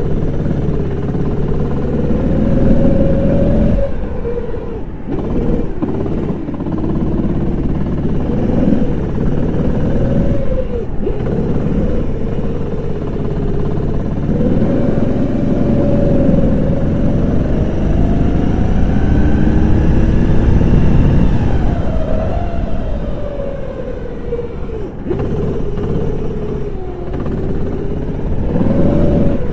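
Go-kart engine heard from the driver's seat, revving up and falling back again and again, with several sudden drops as the throttle is lifted.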